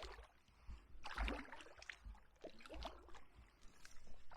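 Kayak paddle strokes dipping and splashing in the water, about three strokes in all, roughly one every one and a half seconds.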